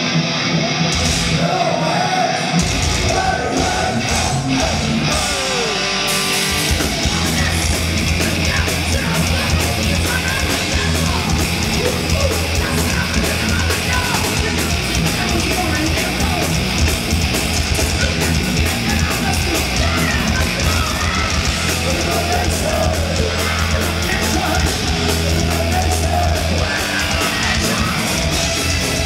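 Thrash metal band playing live, heard from the crowd: distorted electric guitars, bass and drums, with vocals at times. After a sparser guitar passage, the full band comes in hard about six and a half seconds in, with fast drumming.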